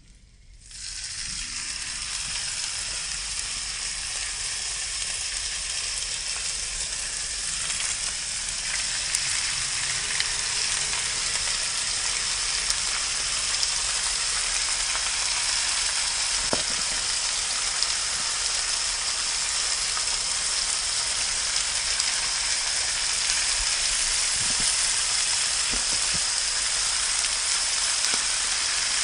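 Shaved ribeye frying in bacon grease in a hot cast iron pan: a loud, steady sizzle that starts suddenly about a second in, as the meat hits the fat, and grows a little louder partway through, with a few faint pops.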